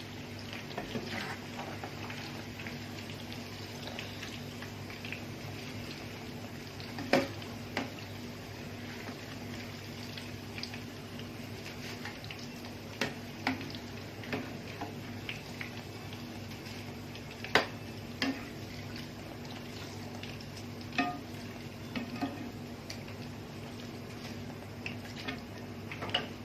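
Potatoes frying in hot oil with a steady sizzle, and a utensil knocking against the pan now and then as they are lifted out to drain.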